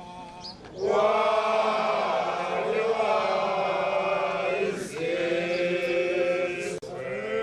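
A group of voices chanting together in long held phrases, the first starting about a second in and a second one about five seconds in.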